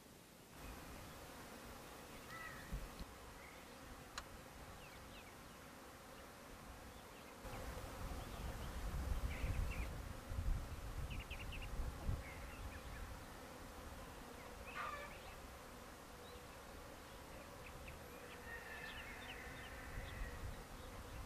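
Honeybees buzzing steadily around a hive, with scattered short bird chirps. A low rumble comes in about a third of the way through.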